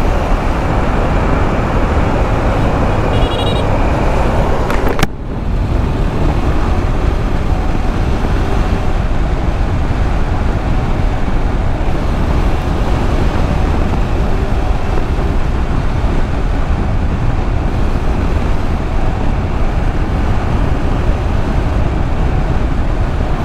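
Loud, steady wind and road noise of a KTM 390 Adventure motorcycle under way, with its single-cylinder engine running underneath. The noise breaks off for an instant about five seconds in.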